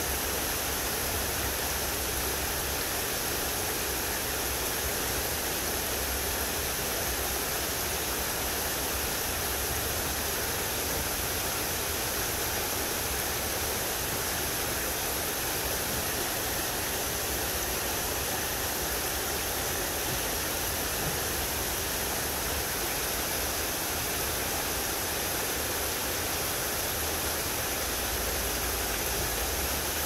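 Shallow, rocky creek rushing over stones in small rapids: a steady, unbroken rush of water.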